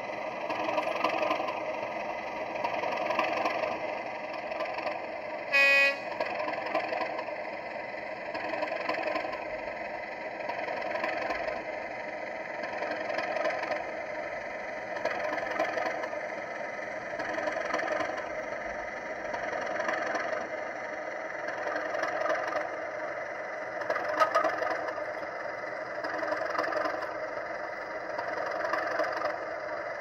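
Class 37 diesel engine sound (an English Electric V12) from a sound-fitted 00 gauge model locomotive, running steadily and swelling and fading every couple of seconds. One short, loud horn blast sounds about five and a half seconds in.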